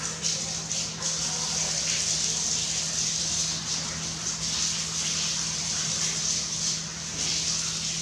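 Water spraying from a garden hose, a hissing gush that swells and dips as the spray moves. A steady low hum runs underneath.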